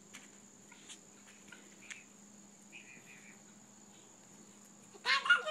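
Insects, crickets by their sound, trilling steadily in a faint high thin tone, with a few faint distant chirps and ticks. About five seconds in, a loud cry with a bending pitch breaks in suddenly.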